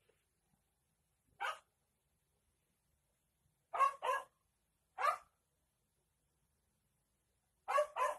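A dog barking: six short barks, singly and in quick pairs.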